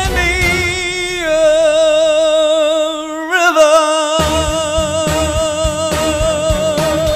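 A male singer holds one long note with vibrato over backing music, the pitch stepping down about a second in and scooping up briefly around three seconds in. The backing drops out for about a second midway and comes back, and the note cuts off at the end.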